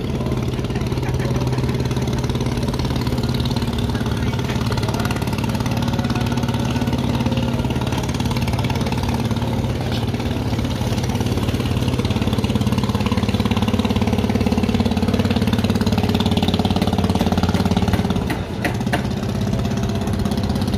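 An engine running steadily at idle, a constant hum whose pitch shifts slightly now and then, with a brief dip about two seconds before the end.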